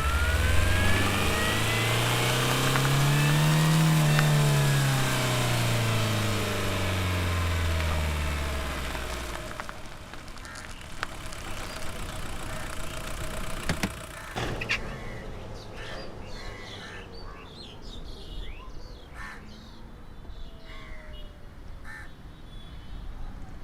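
Car engine sound effect, its pitch rising to a peak about four seconds in and then falling away until it stops after about nine and a half seconds. A quieter stretch of scattered clicks and knocks follows.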